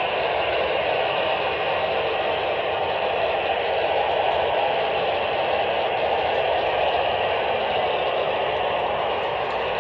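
Handheld FM transceiver's speaker giving a steady hiss of open-squelch static, with no voice coming through from the AO-91 satellite downlink. The satellite signal is blocked, a sign the pass has dropped behind a wall at low elevation.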